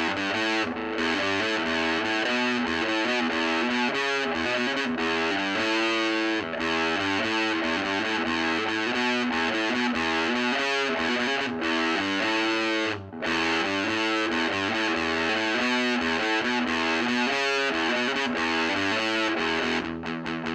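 Electric guitar played through the overdrive channel of an Ever Play RG60 solid-state 2x12 combo amp: a continuous distorted riff of changing notes, with a brief gap about two-thirds of the way through.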